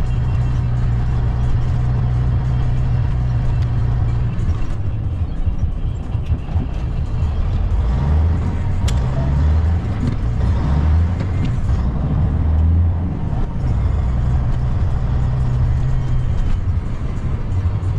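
Semi-truck engine running steadily on the road, a loud low drone; its note shifts partway through, about halfway in, then settles again.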